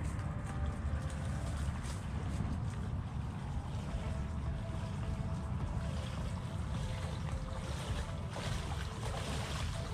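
Wind buffeting the microphone over shallow water, with splashing from wading steps in the last couple of seconds.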